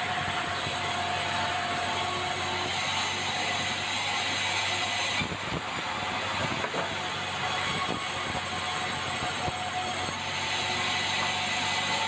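Sawmill machinery running steadily, a constant mechanical drone and hiss with a few knocks about halfway through.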